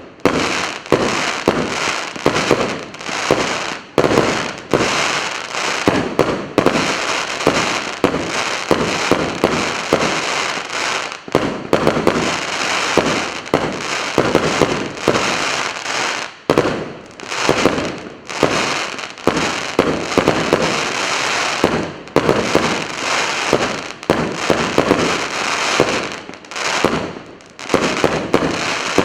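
A 100-shot firework battery (cake of salutes) firing, a rapid run of launches and bursts several a second, with a few brief lulls between volleys.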